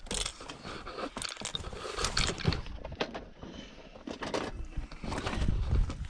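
Fishing tackle being handled and footsteps on gravel: irregular scrapes, clicks and crunches, with a low rumble building near the end.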